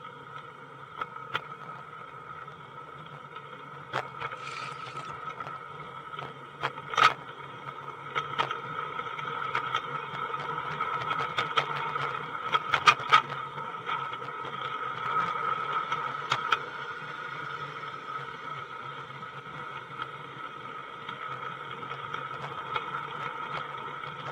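Garden-scale model train heard from a wagon it is pulling: a steady running drone from the moving train, broken by irregular sharp clicks and knocks, the loudest about a third and halfway through.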